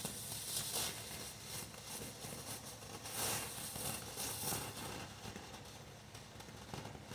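Black Cat Fiesta Grande firework fountain spraying sparks: a steady high-pitched hiss that swells in several brief surges and eases off near the end.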